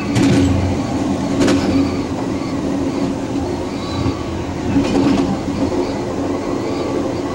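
A train running along the track, heard from the head end: a steady drone with a few sharp clacks of the wheels over rail joints.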